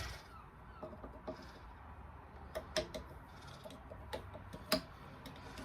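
Irregular light clicks and taps of small engine parts being handled and fitted by hand, about ten in all, over a faint low hum.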